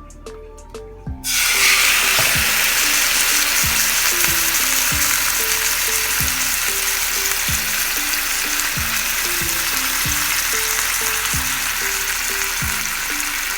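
Marinated chicken pieces going into hot oil in a frying pan: a loud sizzle starts suddenly about a second in and carries on steadily as the chicken sears.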